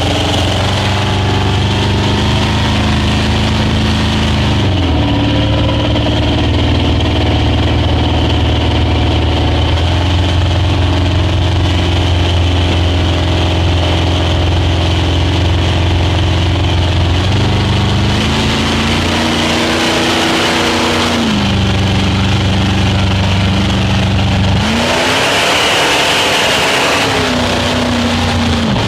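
Speedboat engine running under way. Its note falls and climbs again several times as the throttle changes, over a steady hiss.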